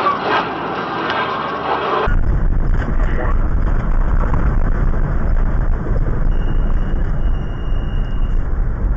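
Car driving noise from two different clips, cut abruptly about two seconds in. The second clip has a heavy, steady low rumble of road and wind noise.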